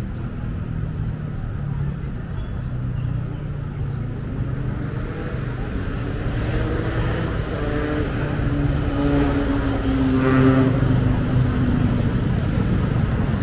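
Outdoor road traffic noise with a steady low rumble. A motor vehicle engine grows louder from about halfway in, peaks near the end, then eases off as it passes.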